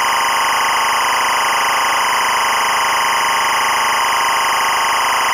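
EBU linear timecode (LTC) audio signal at 25 frames per second: a steady, unbroken electronic data tone carrying the running timecode.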